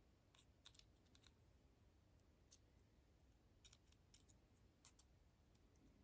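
Faint, scattered small metallic clicks as tools pry at the retaining C-clip on the back of a brass lock cylinder, working it off.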